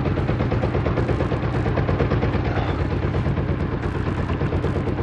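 Small fishing boat's engine running steadily, a fast even pulse.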